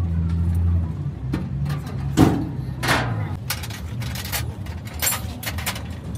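An engine running, its low hum stepping down in pitch over the first few seconds. Sharp metallic clanks and clinks of steel hand tools are scattered through it, the loudest about two seconds in.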